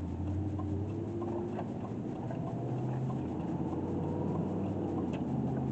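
Dodge Ram 1500 pickup heard from inside the cab: a steady low engine and drivetrain hum whose pitch steps up a little partway through as the truck moves off from a stop.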